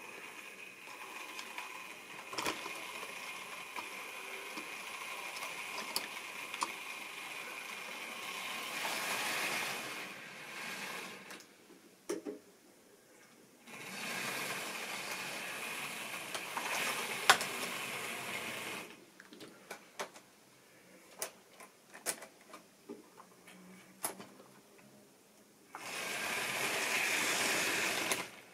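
Model railway train running on the track: the small electric motor whirring and the wheels rattling over the rails, in three runs of several seconds each that cut off sharply, with scattered clicks between them.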